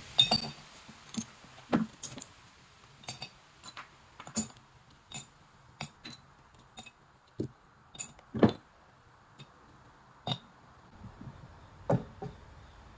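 Irregular metallic clinks and knocks, about twenty separate strikes, the loudest a little past the middle: metal pieces and tools being handled in home metal casting.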